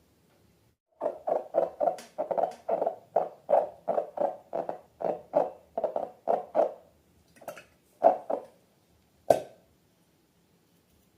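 Slime being squeezed and kneaded by hand, squelching in a steady run of about three squishes a second, then a few slower ones ending with a sharper squelch near the end.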